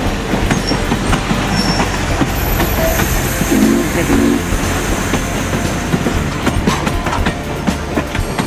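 Passenger train cars rolling by close at hand, their wheels clicking over the rail joints over a steady rumble. A faint high wheel squeal comes in about two seconds in and fades a few seconds later.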